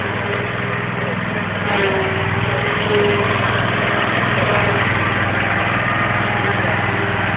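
Lawn mower engine running steadily, getting a little louder from about two seconds in.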